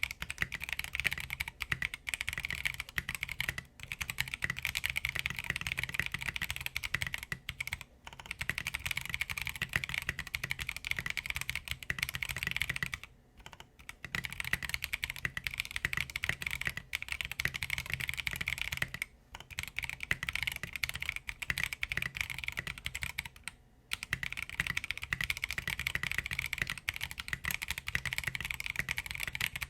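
Fast continuous typing on a 60% mechanical keyboard with Blue Velvet tactile switches and KAT blank keycaps on an aluminum plate, in a plastic case with a silicone dampener: a dense run of key clacks, broken by short pauses about every five seconds.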